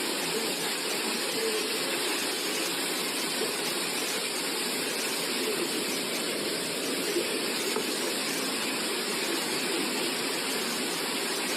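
Steady rushing of water: a continuous, even hiss with no breaks or single impacts.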